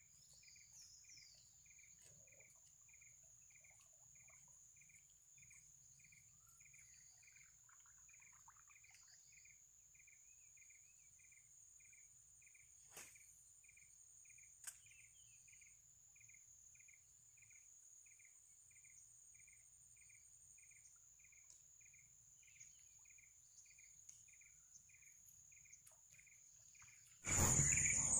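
Swamp insects: a steady high-pitched drone with a regular chirp about one and a half times a second, and a couple of faint clicks. About a second before the end a sudden, much louder rush of noise starts.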